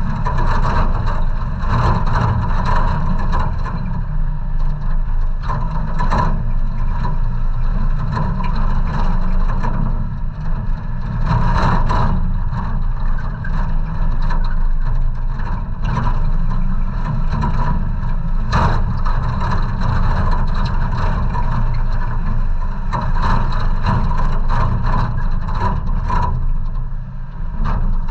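A 1990 Toyota 4Runner running steadily as it drives a bumpy dirt trail, heard from the hood, with a heavy low rumble and sharp knocks now and then as the truck goes over bumps.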